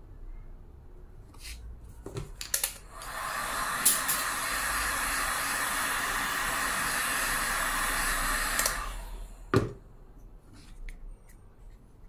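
Handheld heat gun blowing hot air steadily for about six seconds to dry freshly painted red glaze on a clay disc. A sharp click marks its start, and a knock follows soon after it stops.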